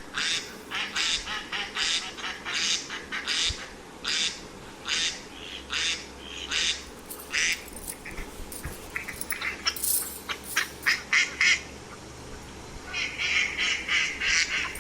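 Ducks quacking: a steady series of short quacks, about two a second, becoming a quicker run of calls near the end.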